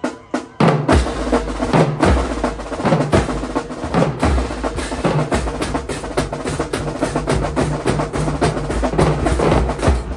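High school marching band playing: a drumline of snare and bass drums beats out a fast rhythm, with a low bass line joining about half a second in.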